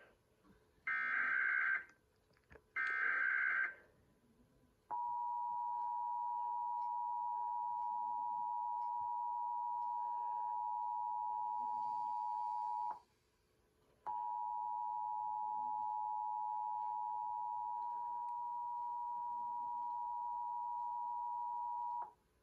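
Emergency Alert System test broadcast: the last two of the three short, raspy data bursts of the EAS header, then the steady two-tone attention signal, held for about eight seconds, broken off for about a second, and held for about eight seconds more.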